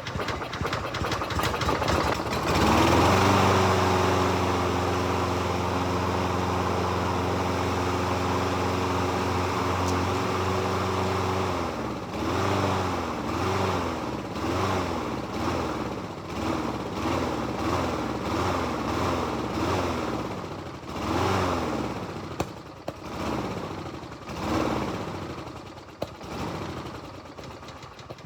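Walk-behind lawn mower engine with a freshly cleaned carburettor, catching about two and a half seconds in and running at a steady speed. From about halfway through, its speed rises and falls about once a second.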